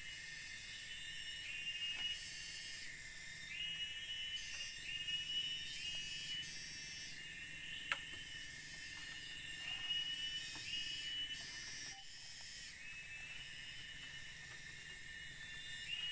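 Tropical forest ambience: a steady high-pitched insect drone, with a short rising call repeating about once a second in runs. A single sharp knock about eight seconds in.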